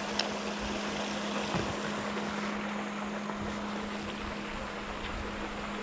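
Steady rushing ambience of wind on the microphone and running water, over a constant low hum. A brief sharp tick just after the start.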